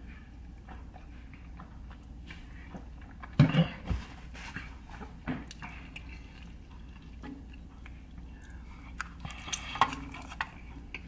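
Eating and drinking sounds: sipping from a small plastic juice bottle, then chewing and biting into a burrito, with scattered clicks and crackles. A few loud knocks come about three and a half seconds in, and a denser run of crackles comes near the end as a bite is taken.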